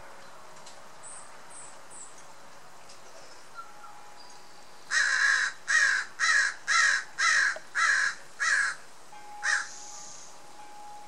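A bird calling outdoors: seven loud calls in quick succession, about two a second, then one more after a short pause. Fainter birdsong and a steady background hiss lie underneath.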